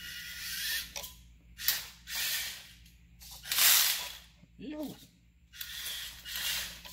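Electric motors and gear trains of a homemade 8x8 WPL-based RC truck running in several short bursts of throttle, with a ratcheting, clicking sound from the drivetrain. The builder puts the clicking down to the rear axle and its used parts.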